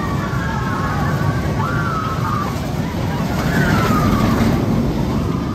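Invertigo, a suspended shuttle roller coaster, rumbling as its train runs through the loop overhead, with a few high wails that rise and fall over the rumble.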